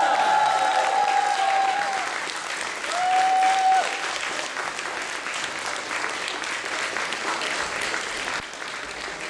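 Audience applauding steadily, with two held high-pitched notes over the clapping in the first four seconds, the first about two seconds long and the second under a second.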